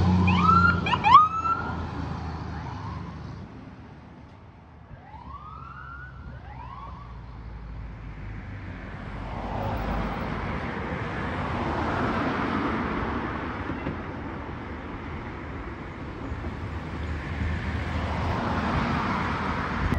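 Emergency vehicle sirens on a street: a fire engine's siren gives short rising whoops about a second in and again a few seconds later, then a rising and falling rush of engine and road noise as vehicles come up the street, with another rising siren sweep near the end.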